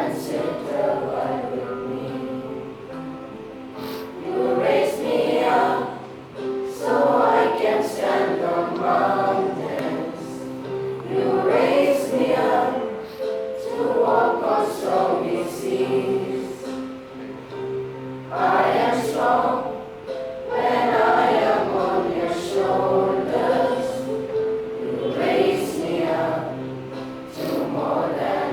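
A class of schoolchildren singing a prayer song together as a choir, in phrases of a few seconds with held notes.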